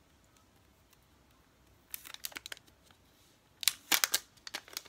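Plastic protective film on a new smartphone crinkling as it is handled and peeled, in short crackling bursts: a few about two seconds in, louder ones near the end.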